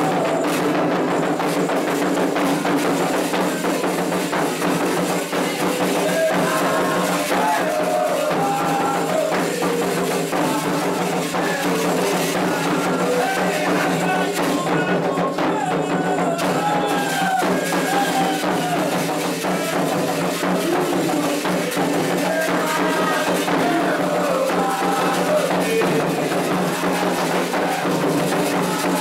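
Candomblé ritual music: atabaque hand drums and shaken or struck percussion keeping a dense, steady rhythm, with voices singing a chant to call the voduns over it from about six seconds in.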